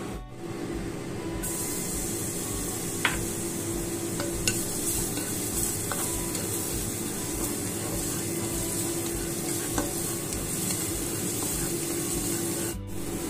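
Minced garlic sizzling in hot oil in a frying pan while a spatula stirs and scrapes it, with a few sharp taps of the spatula on the pan. The sizzle starts about a second in and then holds steady.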